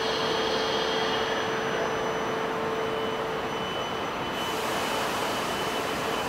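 E4 series Max double-decker Shinkansen pulling out slowly from the platform: steady running noise with a held low tone and a faint high whine, and a hiss joining about four seconds in.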